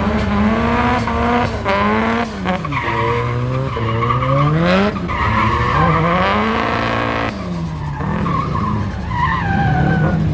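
Drift car's engine revving hard, rising and falling in pitch about three times as the car slides sideways, with tyre skid noise underneath.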